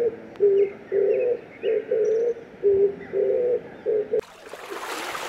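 Dove cooing: a steady run of low, repeated coos, short and long notes in turn, about two a second. About four seconds in it cuts off abruptly to a rushing sound of flowing water.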